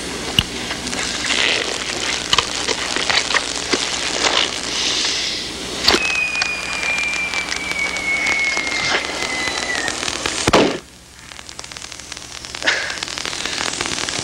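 Steady crackling and hiss with scattered clicks and pops, from an old 1960s film soundtrack. A faint thin tone slides slowly downward from about six to ten seconds in. A loud click just before eleven seconds is followed by a short, quieter stretch before the crackle returns.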